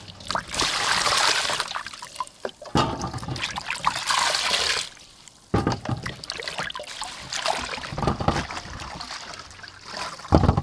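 Water sloshing and splashing in a stainless steel bowl as hands wash cucumbers and leafy herbs, in irregular stretches with short pauses. A brief dull thump comes just before the end.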